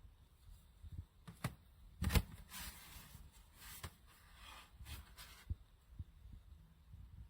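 Rustling and a few sharp knocks close to the microphone, the loudest about two seconds in, over a steady low wind rumble.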